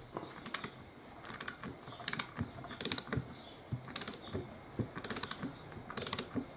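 Socket ratchet clicking as it is swung back and forth to loosen a bolt on a four-piston brake caliper: a short run of fast clicks on each back-stroke, roughly once a second.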